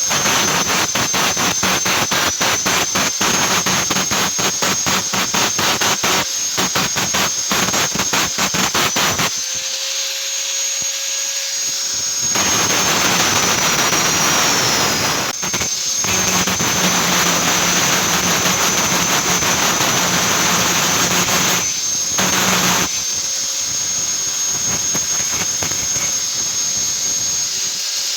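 Angle grinder running on steel, with a steady high whine that sags for a moment under load. For the first third it gives a dense, rapid crackle, goes quieter for a few seconds, then grinds steadily.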